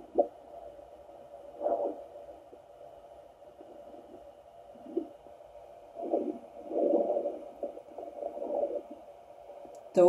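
Bowel sounds from digestion after a meal, picked up by a Facelake handheld fetal Doppler probe on the lower belly and played through its speaker: irregular bursts of rumbling with a busier cluster in the second half, over a faint steady hum. These are sounds that are easily mistaken for a fetal heartbeat or fetal movement.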